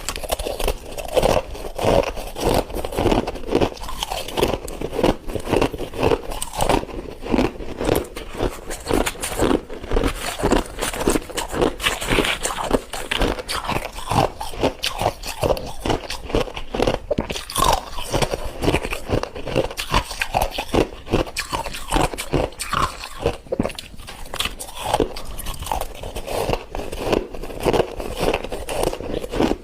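Freezer frost being bitten and chewed close to the microphone, with dense, rapid crunching that keeps on without a break.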